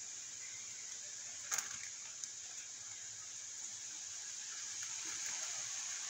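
Steady hiss of wind, with two sharp clicks about a second and a half in and a fainter click shortly after.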